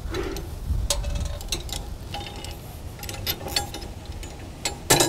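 Metal clinks and rattles of a steel coil spring being handled and hooked onto a drum mower's steel spring assembly, with a louder clank near the end.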